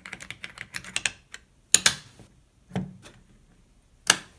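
Small clicks and knocks of a 35mm film cassette and its film being handled and seated in the open back of a Wollensak Stereo 10 stereo camera. A quick run of light clicks comes in the first second, then a few sharper knocks about two, three and four seconds in.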